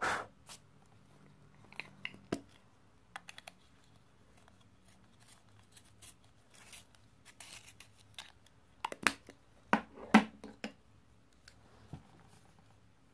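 Colored pencils being sharpened in a small handheld sharpener: short, scratchy rasps and clicks, busiest a little past the middle. Near the end a colored pencil scratches lightly on the drawing paper.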